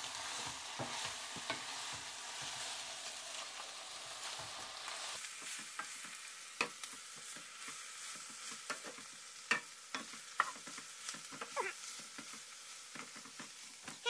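Raw shrimp and spinach sizzling in oil in a skillet while a wooden spoon stirs them, with scattered knocks of the spoon against the pan. The sizzle is fullest for the first five seconds or so, then thins out.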